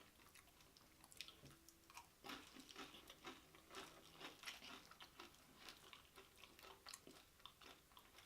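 Close-up mouth sounds of someone chewing a mouthful of loaded nachos: soft, irregular crunching and crackling of tortilla chips.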